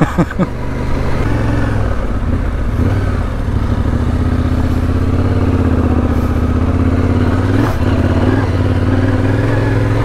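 Yamaha Ténéré 700 parallel-twin engine running at low riding speed under light throttle. The engine note dips and then rises gently as the bike rolls off the cobblestones onto a dirt track.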